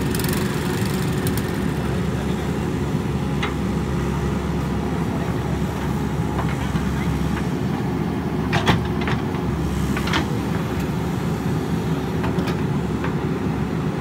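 JCB backhoe loader's diesel engine running steadily under working load as the backhoe arm digs and swings. A few sharp knocks sound past the middle.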